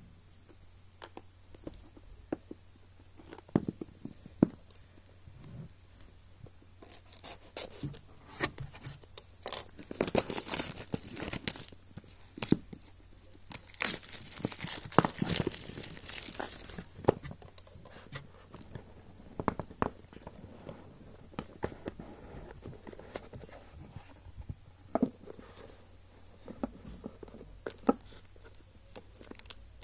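Plastic shrink wrap being torn off a smartphone's cardboard retail box and crumpled, crackling and tearing loudest through the middle, with scattered clicks and taps of the box being handled before and after.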